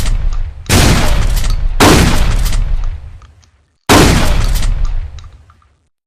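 Trench shotgun firing three loud shots, about a second apart and then after a two-second pause, each blast followed by a long echoing tail that fades out.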